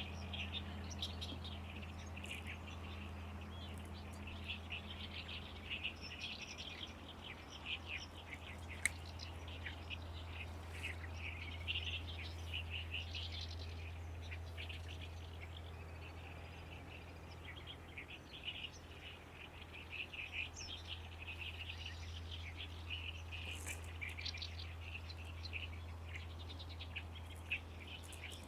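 Great reed warbler singing: long runs of short, rapid notes in repeated phrases, with a brief lull a little past halfway. A steady low hum runs underneath.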